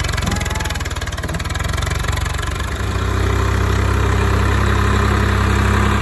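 Swaraj 744 FE tractor's three-cylinder diesel engine running steadily with a fast, even beat, pulling a trolley heavily loaded with wooden poles.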